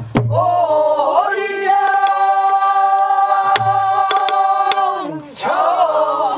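A group singing a pansori phrase in unison, holding long, slowly bending notes, with deep strokes on a buk barrel drum near the start and about three and a half seconds in, and sharp stick clicks between them.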